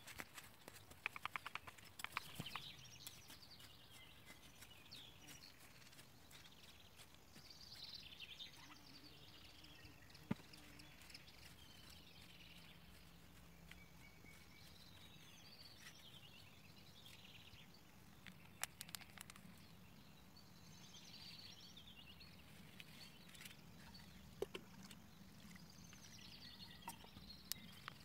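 Near silence with faint birdsong in the background and a few soft clicks, most of them in the first couple of seconds.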